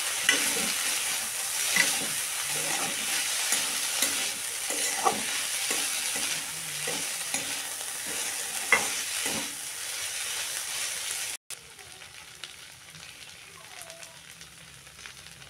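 Julienned potatoes frying in oil in a wok, sizzling steadily while a spatula stirs them and scrapes and knocks against the pan in irregular clicks. About eleven seconds in there is an abrupt cut, after which only a quieter sizzle remains.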